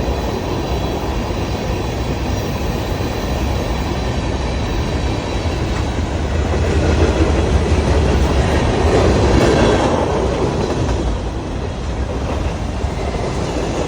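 A train running past on the rails, its cars rolling by in a steady rumble that grows louder about halfway through, then eases off.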